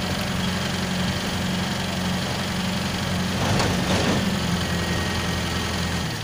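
Mobile crane's engine running steadily at a low idle, with a brief rush of hiss about three and a half seconds in.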